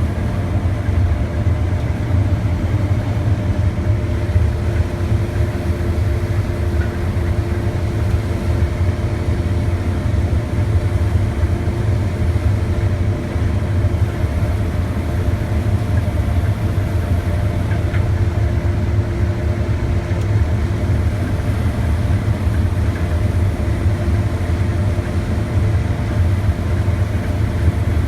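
Case IH 8230 combine's diesel engine and threshing machinery running steadily, harvesting corn, with a deep, even drone.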